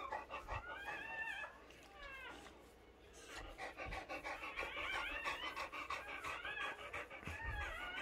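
A dog in labour panting fast, with high-pitched whining cries rising and falling over the panting; it goes quieter for a moment around the middle.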